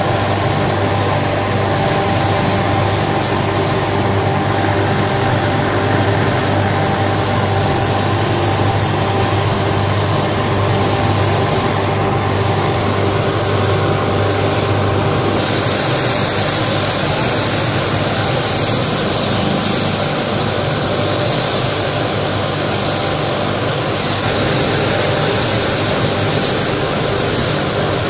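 Paint-spraying equipment running steadily, a motor hum under a constant hiss, as paint is sprayed onto a laptop lid. The hiss changes in tone about fifteen seconds in.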